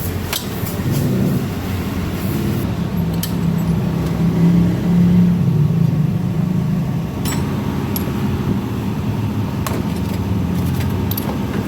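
An engine running steadily, rising a little and growing louder about four to six seconds in, with a few sharp metallic clicks of tools over it.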